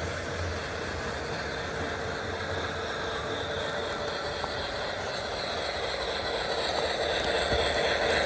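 American Flyer S-gauge model train running on the layout's track, a steady rolling rumble that grows louder from about six seconds in as the train nears.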